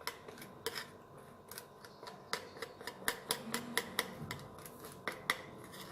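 A stirring utensil clicking and tapping against a saucepan while chocolate pieces are stirred into hot, thickened pastry cream to melt them; light irregular clicks, several a second, busier after about two seconds.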